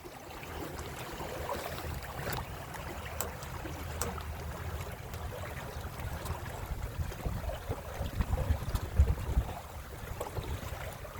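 Water rushing and splashing along the hulls of a Windrider 17 trimaran under way under sail, with wind buffeting the microphone in an uneven low rumble that is strongest about eight to nine seconds in.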